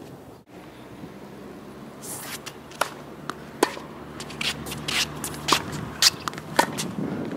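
Tennis rally on a hard court: sharp pops of the ball coming off racket strings and bouncing on the court, with shoes scuffing and ticking on the surface between shots.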